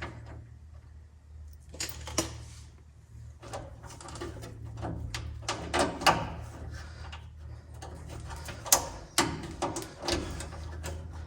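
Irregular clicks, taps and clanks of hand tools and small metal hardware being handled during work on a truck, over a steady low hum.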